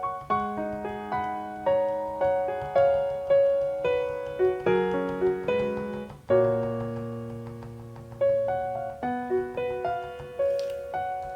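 Background piano music: a slow, gentle melody of single notes over chords, each note struck and then fading.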